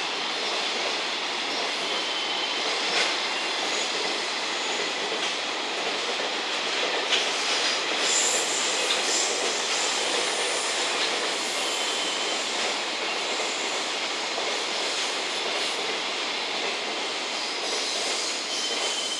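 A 22-car container freight train's wagons rolling past: steady noise of steel wheels on rails, with a few brief high wheel squeals and occasional clicks.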